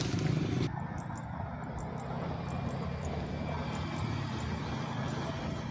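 A steady low motor rumble, like a vehicle engine running, with scattered faint high ticks over it.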